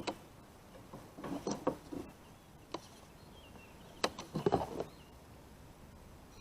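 Scattered short rustles and knocks of hands pulling in a catfish bank line, in a few groups, with a faint bird chirp in the middle.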